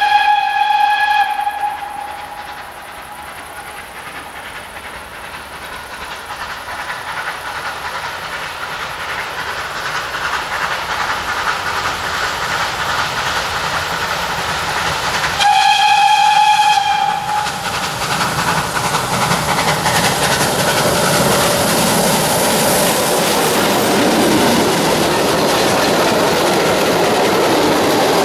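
Ol49 steam locomotive's whistle blown twice, each blast about a second and a half, the second some fifteen seconds after the first. Between and after the blasts, the steam-hauled passenger train's running noise grows steadily louder as it approaches, then stays loud as the coaches pass close by on the rails.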